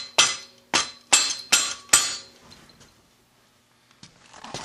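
Hammer blows tapping a metal pivot bracket along an Arctic Cat F7 snowmobile rear skid rail to slide it into place. Sharp metallic knocks, each with a short ring, come about two a second and stop about two seconds in. One softer knock follows near the end.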